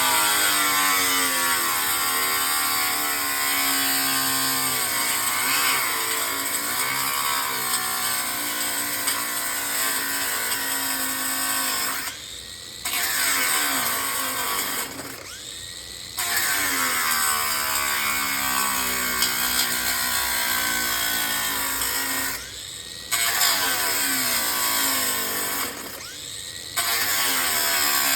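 A handheld power tool cutting into a hollow aluminum post, run in long stretches that stop briefly four times before starting again.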